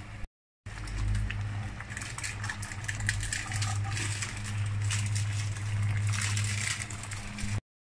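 Pork rib and vegetable stew simmering in a metal wok, crackling and bubbling as a ladle stirs it, over a steady low hum. The sound cuts out completely for a moment near the start and again near the end.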